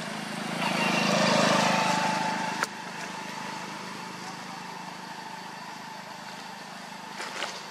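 An engine running steadily with a low hum. It grows louder for about two seconds and drops back, with a sharp click about two and a half seconds in.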